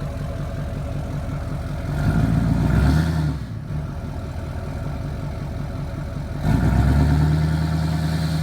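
An engine idling with a steady rhythmic pulse, revved up twice: briefly about two seconds in, and again for about two seconds near the end.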